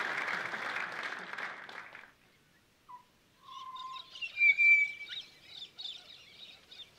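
Applause fading out over the first two seconds, then birdsong: a short whistle, followed by a run of high chattering, warbling calls with one loud, clear whistle in the middle.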